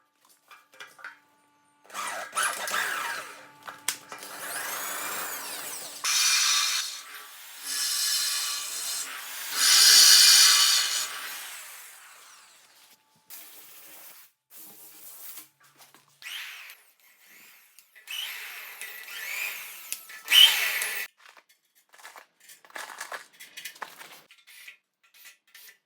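Power drill boring holes into steel to mount linear rails, running in several runs of a few seconds, the longest and loudest near the middle, then shorter bursts and small clicks of handling.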